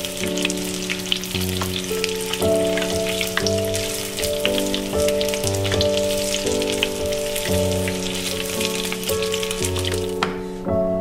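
Hot oil sizzling and crackling as breaded broccoli deep-fries in a small enamel saucepan. The crackle cuts off about ten seconds in.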